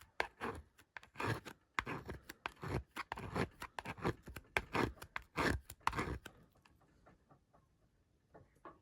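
Quick repeated scraping and rubbing strokes on a tablet's plastic casing, working off sticky sticker residue, about two or three strokes a second, stopping about six seconds in.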